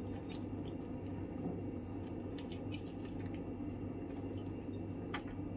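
Quiet kitchen handling of a bowl of dosa batter as ingredients go in: faint soft squishing and a few light ticks over a steady low hum.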